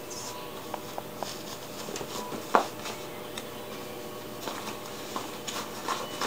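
Soft rustling and scuffing of packed gear and the nylon fabric of a Deuter ACT Trail 28 SL backpack as items are pushed and stuffed into its bottom compartment, with one sharp tap about two and a half seconds in.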